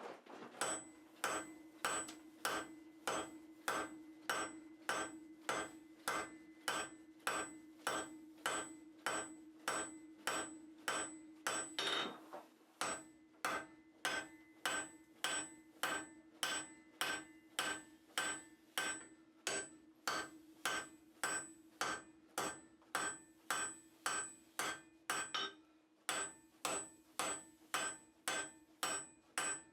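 Blacksmith's hammer striking hot steel on an anvil in a steady rhythm of about two blows a second while forging tongs, with a short break about twelve seconds in. A steady hum runs underneath.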